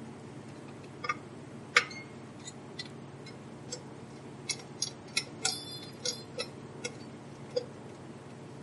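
Straight-blade screwdriver clicking and scraping on screw heads as screws are snugged up inside a sheet-metal instrument case. The clicks come irregularly, with a cluster of sharper metallic clinks a little past the middle.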